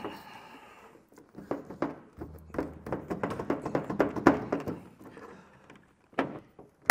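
Plastic taillight housing of a 2020 Chevrolet Silverado 1500 rattling and knocking in its pocket as it is shaken loose from its alignment tabs: a quick run of irregular knocks, then a couple of sharper single knocks near the end.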